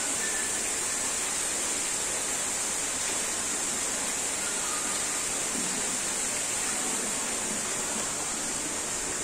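Steady rushing hiss from a tropical greenhouse's climate equipment, its ventilation fans and humidity misters, with a strong high-pitched hiss over an even rush.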